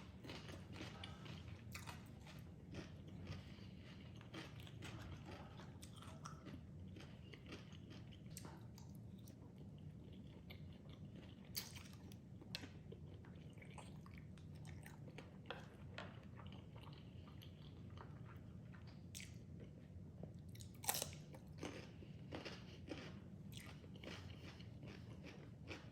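A person chewing a mouthful of crunchy raw-vegetable salad, with a steady run of soft crunches and wet chewing and a few sharper crunches.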